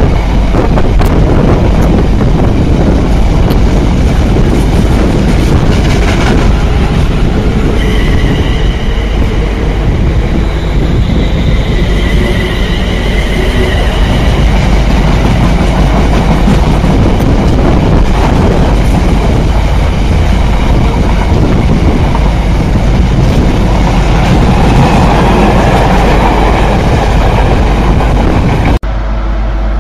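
Container freight train passing close by, its loaded wagons making a loud, steady rumble with a clickety-clack over the rail joints. High whining tones come and go for a few seconds partway through, and the sound cuts off abruptly near the end.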